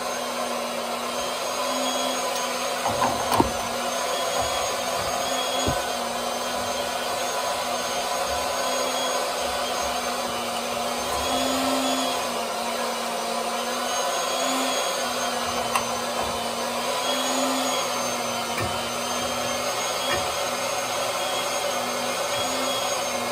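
Electric pump running steadily with a wavering motor whine as it pumps the water heater tank down. A few sharp metal knocks from work on the pipe unions, about three and a half, six and sixteen seconds in.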